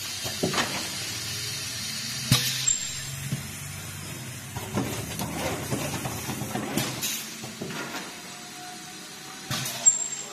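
Spout pouch filling and capping machine running: a steady hum with a knock and short hiss every two to three seconds as it cycles.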